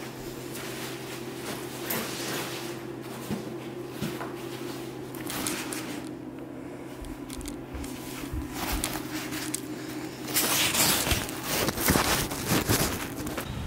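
A nylon backpack being handled, its fabric rustling in short bursts, with the loudest, densest rustling about ten seconds in. A steady low hum runs under it and stops about ten seconds in.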